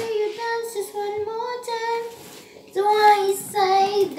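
A voice singing a wordless tune in long, high held notes, with a short pause about two seconds in.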